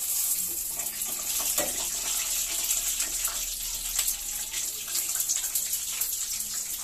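Chicken frying in a pan of hot oil: a steady sizzle with scattered crackles and pops.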